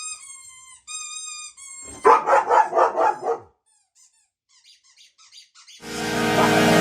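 A dog whining twice in high, drawn-out tones, then a quick run of about seven barks, followed by a few faint yips. Music fades in near the end.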